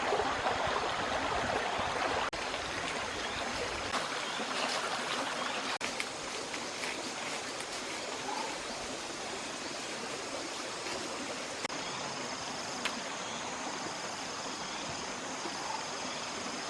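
Running water of a stream, a steady rushing and trickling, a little louder for the first couple of seconds. A faint high-pitched sound comes and goes over it in the last few seconds.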